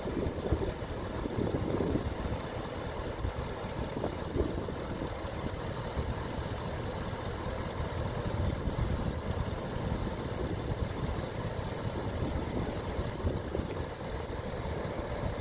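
Ford F-250 pickup truck running, a steady low rumble with no sudden changes.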